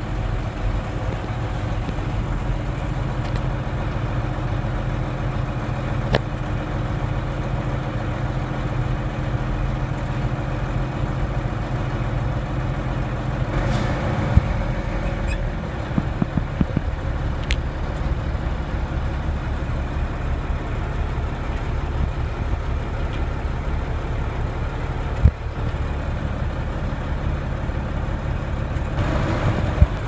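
Heavy vehicle engine running steadily with a low drone, its note shifting a little about halfway through, with a few faint knocks and clicks.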